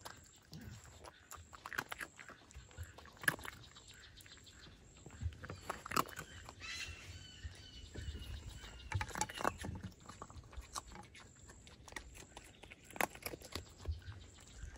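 Foxes eating close up from a metal bowl: irregular chewing, crunching and clicking of food and bowl, with a brief high call about six seconds in.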